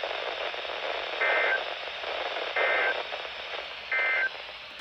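Three short bursts of Emergency Alert System SAME data tones, each about a third of a second long and a little over a second apart, over a steady radio hiss. This is the end-of-message signal that closes a snow squall warning on NOAA Weather Radio.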